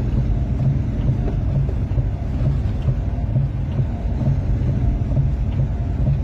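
Steady low rumble of engine and road noise inside a vehicle's cab as it drives slowly on a slushy, snow-covered highway.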